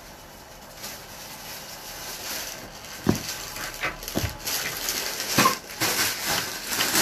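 Clothes being handled close to the phone's microphone: fabric rustling that grows louder, with a few sharp knocks from about the middle onward.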